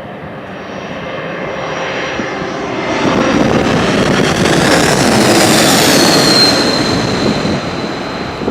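Jet airliner passing close by: turbofan noise builds to a peak about two-thirds of the way through, with a high whine that slides down in pitch as it goes past. Wind buffets the microphone.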